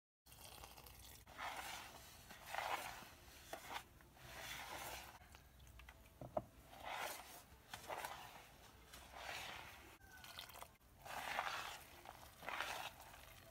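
A hand mixing wheat-flour fritter batter with chopped tomato and onion in a plastic bowl: wet squishing and crunching in repeated strokes, about one a second, with a single sharp click about halfway through.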